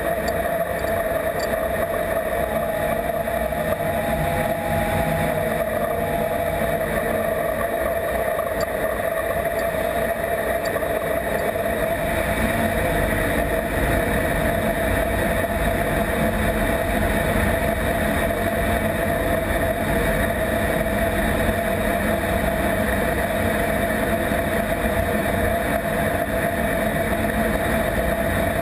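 F-16 fighter jet in flight, heard from inside the closed cockpit: the jet engine and air rushing over the canopy blend into a steady, even roar with a constant hum-like tone running through it.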